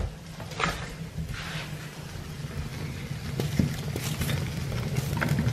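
Split firewood being fed into the firebox of a wood-burning cookstove: a few separate knocks and clunks of wood against the iron, over a low steady hum.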